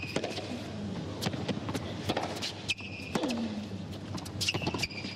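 Tennis rally on a hard court: the ball is struck by rackets and bounces with sharp knocks. Short, high shoe squeaks on the court and a player's grunt falling in pitch come between the shots.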